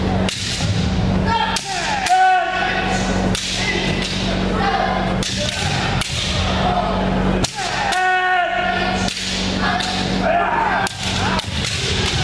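Kendo sparring: repeated shinai strikes against armour and bare feet stamping on a wooden floor, with long kiai shouts over them, echoing in a gymnasium.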